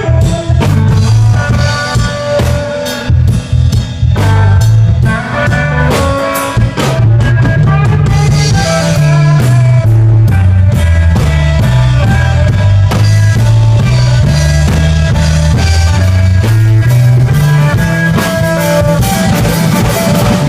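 Live blues-rock trio of guitar, bass guitar and drum kit playing an instrumental passage without singing. The first few seconds are broken up by drum hits and guitar phrases with short drops; about seven seconds in, the band settles into a steady groove over a repeating bass line.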